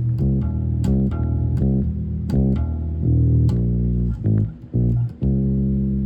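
Bass guitar played as a run of plucked low notes, roughly two a second, settling into a longer held note about five seconds in.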